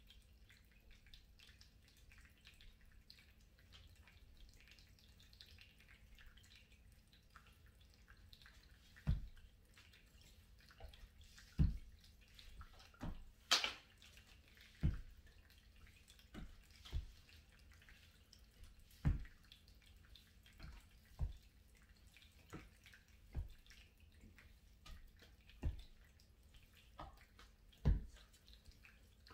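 Faint, irregular thuds every second or two, starting several seconds in: feet landing on a floor mat during lunge exercises, with one sharper click midway. A low steady hum runs underneath.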